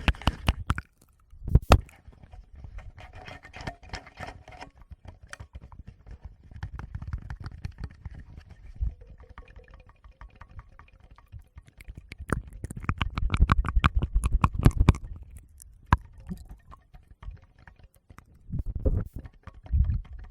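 Fingers tapping and rubbing directly on a Tascam recorder's microphones: rapid soft taps and scratches with low handling thuds. The taps come in a dense flurry about two-thirds of the way in, go quiet briefly, then return near the end.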